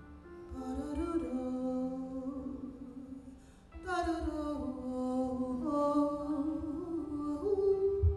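Wordless, wavering held tones voiced into a microphone through cupped hands, in two phrases of stepwise notes, the second opening with a downward slide. A low bump on the microphone comes near the end.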